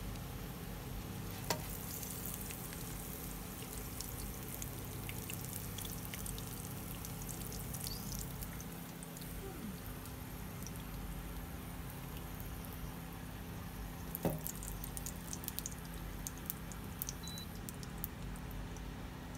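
Hot oil crackling and sizzling around a frying cha-om omelet in a pan, over a steady low hum, with a couple of sharp knocks, about 1.5 s in and again near 14 s.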